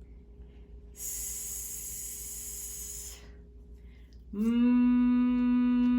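A woman's voice making isolated letter sounds: a long hissed 'sss' about a second in, lasting roughly two seconds, then a steady held hum, like a drawn-out 'mmm', starting near the end.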